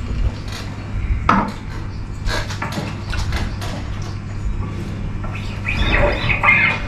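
Steady low hum, like a guitar amplifier's, with a few light knocks and clinks of handling scattered through. The knocks come at about a second in and around two and a half seconds in, and there is a scuffling stretch about six seconds in.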